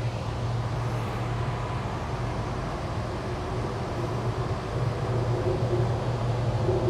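Sydney Metro Northwest driverless train running through a tunnel, heard from inside the front car: a steady low hum under the rumble of wheels on rail, with a higher motor tone coming up in the last couple of seconds.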